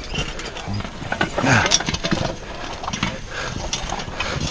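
A man breathing hard with short, strained voiced groans, the sounds of physical exertion.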